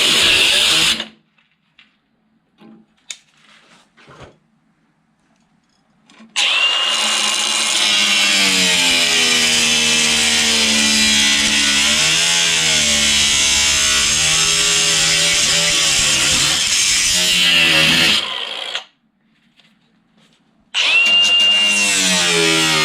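Abrasive cut-off wheel cutting through the sheet metal of a car's rear quarter panel and the patch panel over it. There is a quiet gap with a few faint clicks at first. About six seconds in, the tool starts with a high whine and cuts steadily for some twelve seconds. It stops, then starts again near the end.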